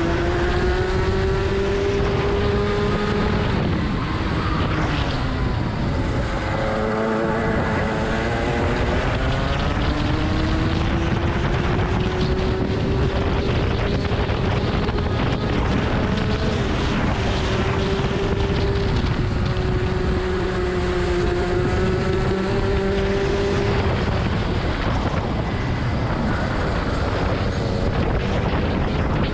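Rotax kart engine at racing speed, heard onboard: its pitch climbs, holds and drops several times over the lap, rising along the straights and falling into the corners. Wind rushes over the microphone.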